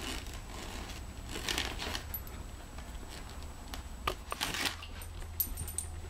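Gift-wrapping paper rustling and crinkling in a few short rustles as a standard poodle noses and mouths a wrapped rubber chicken toy, the loudest about four and a half seconds in.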